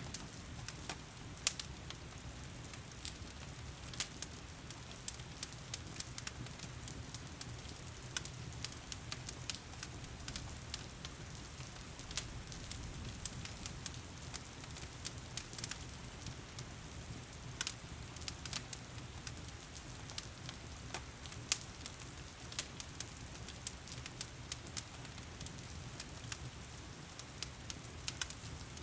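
Wood fire crackling with irregular sharp pops over a steady hiss of heavy rain.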